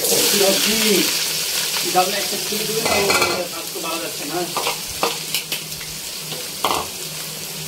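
Chopped vegetables tipped into a pot of hot oil and frying onions, sizzling loudly at first and then settling to a steadier, quieter sizzle after about three seconds. A few light knocks come through it.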